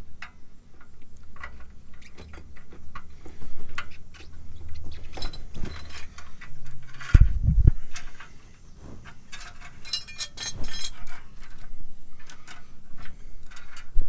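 Metal clinking and jingling as a new parking brake cable end and its coil spring are worked by hand into the rear brake backing plate, with scattered small clicks, a dull thump about seven seconds in and a brief ringing jingle about ten seconds in.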